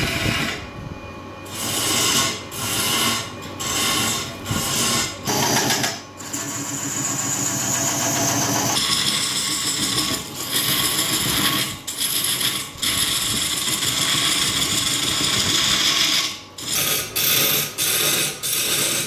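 A turning tool cutting into a large wooden blank spinning on a wood lathe, a loud scraping hiss of shavings being peeled off. The cuts come in short passes about once a second, run on steadily for several seconds in the middle, then break into short passes again near the end.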